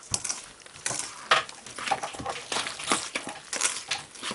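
A hand mixing ground oats, mashed banana, egg and sugar in a stainless steel bowl: irregular squishing and scraping strokes, several a second, as the wet mixture is worked against the bowl.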